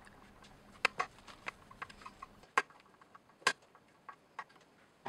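Irregular sharp clicks and taps of a Phillips screwdriver working a screw that holds a stand mixer's motor down to its metal housing, a few of them louder.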